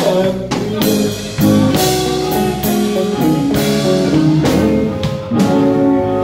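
Live blues band playing: electric guitars through small amplifiers, a drum kit keeping a steady beat, and harmonica.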